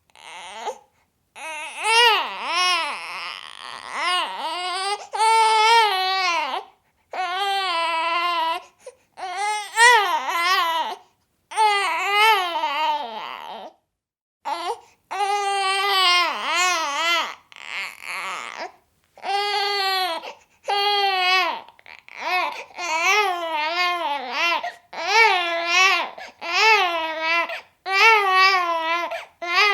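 A baby vocalizing in a string of drawn-out, wavering fussy cries and babbles, one after another with short pauses between.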